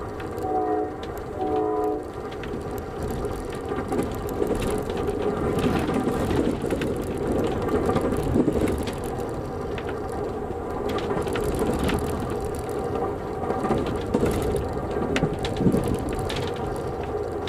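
Rumbling and rattling inside a moving Amtrak passenger car: wheels running on the rails and the car's fittings clattering over a bumpy stretch of track. Two short horn blasts sound about a second in.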